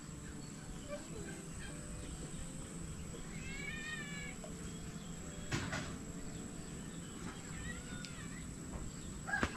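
Faint animal calls: a short call that rises and falls about four seconds in, fainter ones near eight seconds, and a louder call starting near the end, with a single knock in between.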